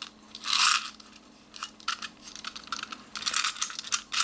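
Handling of a Daisy 340 BB pistol's plastic magazine: a short scrape about half a second in and a few small clicks, then from about three seconds in steel BBs rattling quickly as the pistol is shaken to stack them into the magazine.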